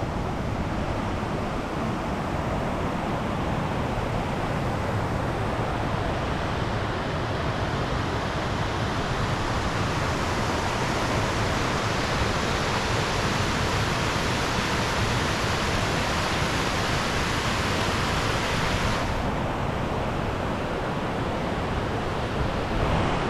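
Steady rushing roar of South Fork Falls, the waterfall's water pouring and crashing. Near the end the higher hiss drops away while the low rush carries on.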